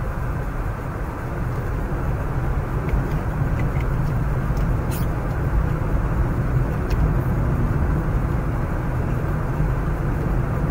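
Steady engine and road noise inside a moving car's cabin, a low rumble, with a few faint clicks around the middle.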